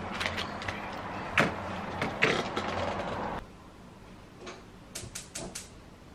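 Close handling noise: cloth rustling with a few soft knocks. About three seconds in it cuts off suddenly, leaving a quieter room with a handful of light clicks.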